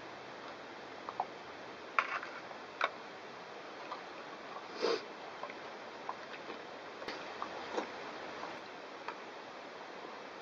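Quiet eating sounds: a spoon clicking and scraping on a metal plate a handful of times, with a few sniffs from a man with a head cold, the longest about halfway through.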